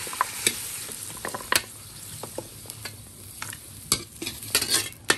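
Hot stir-fried pork ribs sliding and being scraped out of a wok into a clay pot: a soft sizzle that thins after the first second or two, with a string of sharp clicks and knocks as bones and metal hit the wok and the pot.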